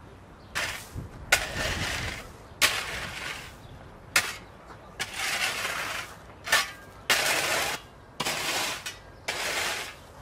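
Shovel scraping into gravel, about eight strokes at a steady working pace, each a sharp strike followed by a scrape of stones lasting under a second.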